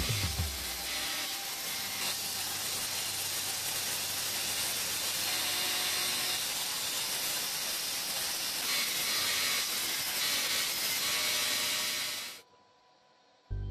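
Belt sander running, grinding a cast aluminium block against its abrasive belt: a steady hissing grind that cuts off suddenly about twelve seconds in.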